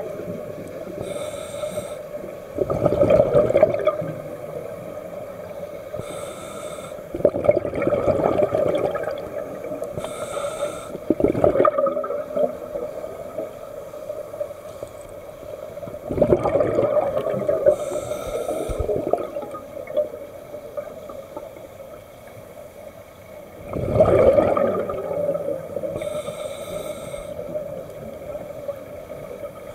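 Scuba diver breathing through a demand regulator underwater: a short hiss on each inhale, then a louder burst of exhaled bubbles, about five slow breaths in all.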